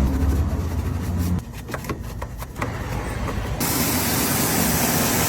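A low machine hum for about a second and a half, then scattered clicks, then cleaning spray hissing steadily on an engine bay from about three and a half seconds in.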